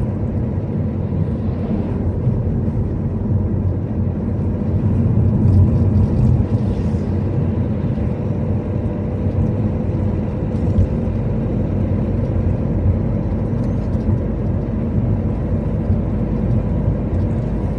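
Steady low rumble of a car driving, road and engine noise, with no change in pace.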